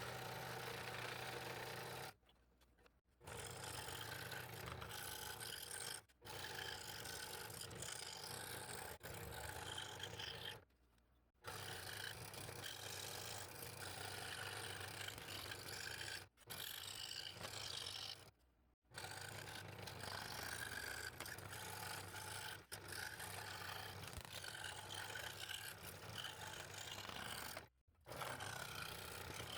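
Scroll saw running with its motor humming steadily, the blade scraping through thin wood. It comes in several stretches, each cut off abruptly.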